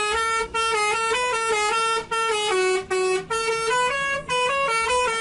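Basuri 'telolet' bus horn playing a quick melodic tune: a run of loud stepped horn notes jumping between pitches, broken by a few short gaps.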